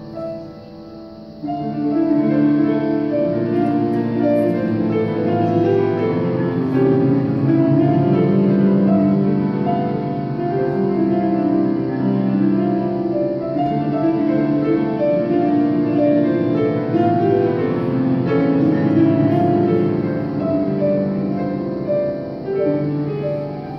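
Solo piano playing a flowing piece with many overlapping, sustained notes. The playing is soft at first and grows suddenly louder about a second and a half in.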